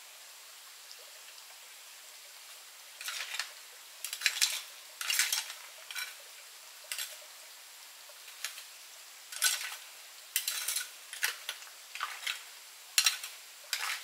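A run of short, irregular clatters and scrapes, about a dozen over some eleven seconds, starting about three seconds in, over a steady rush of running water.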